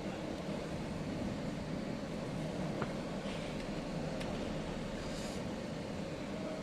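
MOPA fiber laser marking machine running: a steady whir with a few faint ticks and two brief high hisses.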